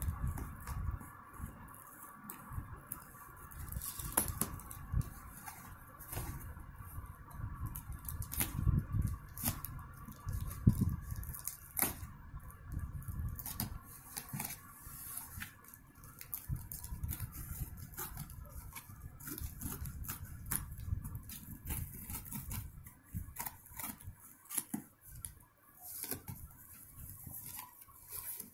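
Scissors cutting through packing tape on a cardboard shipping box, with the box handled and turned and its flaps pulled open: an irregular string of snips, clicks, scrapes and thumps.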